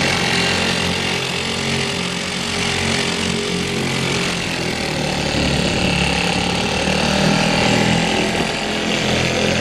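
A 1947–48 Neptune Mighty Mite 1.7 horsepower two-stroke outboard motor running steadily, its note shifting slightly partway through.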